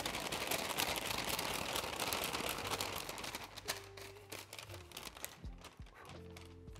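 Brown paper bag with flour and dry-rub seasoning inside being shaken to mix the seasoning through the flour: a dense crinkling rustle for about three and a half seconds, then quieter rustles as the bag is handled.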